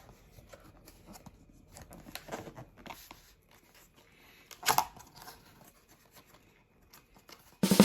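Quiet handling noises: scattered small clicks, rustles and crinkles, with one louder scrape a little past halfway. Music starts abruptly at the very end.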